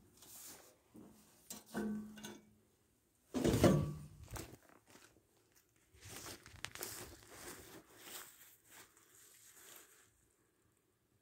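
Footsteps and rustling through low plants and gravel, with a brief louder pitched sound about three and a half seconds in.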